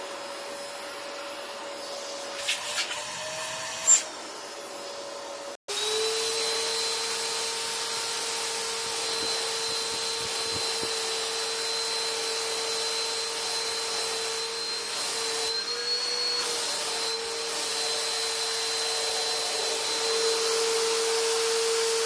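Vacuum cleaner motor running steadily with a high whine, with a few sharp clicks and one loud knock in the first seconds. The sound breaks off about five and a half seconds in, and a vacuum then runs steadily at a slightly lower pitch.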